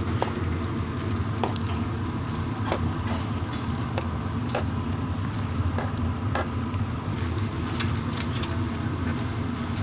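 Food-stall cooking sounds: a steady low hum with scattered sharp clicks and knocks, about one or two a second, over a light crackle.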